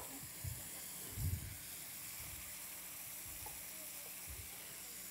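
Chicken sizzling in a hot skillet on a gas burner, a steady faint hiss, with a couple of soft low thumps from the pan being handled.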